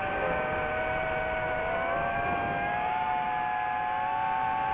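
DJI FPV quadcopter's motors and propellers whining in flight: several steady tones that drift slightly up in pitch about halfway through.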